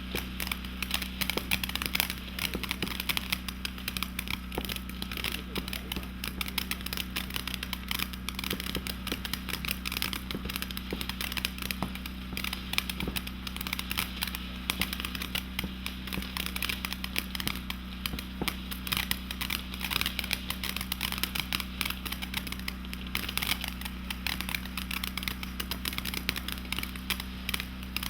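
Firework fountain burning with a dense, steady crackle of its crackling stars, many fast pops running together.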